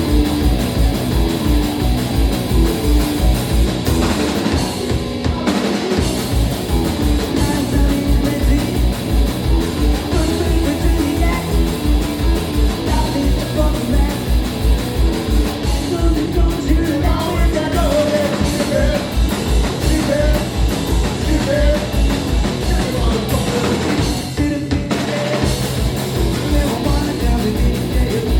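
Live punk rock band playing a fast, driving song on electric guitars, bass and drum kit, with short breaks about four seconds in and near the end.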